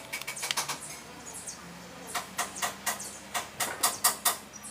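Putty spreader scraping body filler across a car fender panel in short, quick strokes: a few at first, then a regular run of about three or four strokes a second from about halfway.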